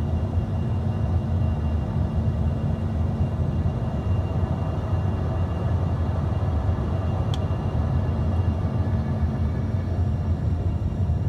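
Steady low rumble of an airliner's engines and airflow inside the cabin during a landing approach, with a faint click about seven seconds in.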